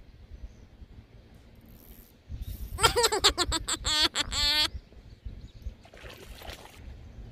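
Spinning reel's drag buzzing as a hooked bass pulls line: a run of quick clicks, then a wavering buzz, for about two seconds, starting a little under three seconds in.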